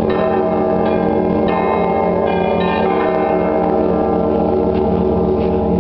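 Church bells of Rostov Veliky ringing in the Russian Orthodox way: smaller bells struck in a quick, uneven sequence over the steady, overlapping ring of the large bells. The strikes of the smaller bells thin out in the second half, leaving mostly the low ringing.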